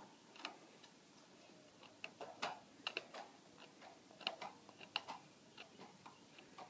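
Red-handled tin snips cutting sheet steel along a curve: a string of faint, irregular snipping clicks, about two a second, as the blades close through the metal.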